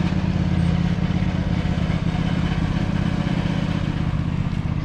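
Riding lawn mower's small engine running steadily, with an even rapid firing pulse.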